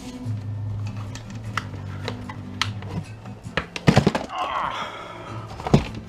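Background music with a steady low tone, over knocks and clatter from a plastic housing being pried and broken apart. The loudest knocks come about four seconds in and again near the end, with a short scraping crackle between them.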